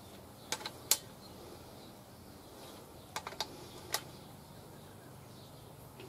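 Sharp metallic clicks from a torque wrench as the crankshaft main bearing cap bolts of a 308 V8 are tightened: three clicks about half a second to a second in, then four more about three to four seconds in. A faint steady low hum runs underneath.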